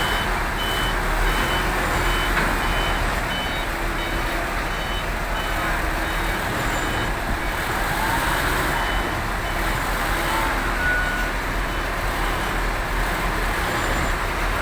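Crane's warning beeper sounding about twice a second over a running diesel engine; the beeps fade after about four seconds while the engine runs on.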